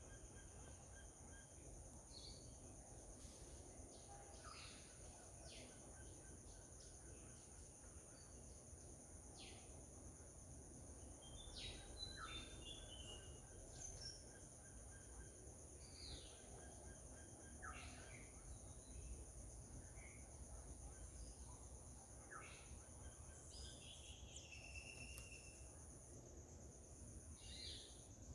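Faint garden ambience: a steady, high-pitched insect drone runs throughout, with scattered short chirping calls and quick downward-sweeping notes from birds.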